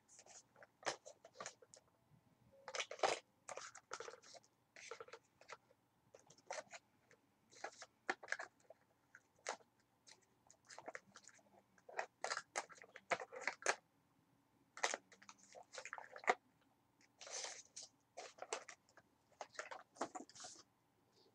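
Rummaging through makeup in search of an eyeshadow: irregular clicks, clatters and rustles of small plastic compacts and cases being picked up and moved.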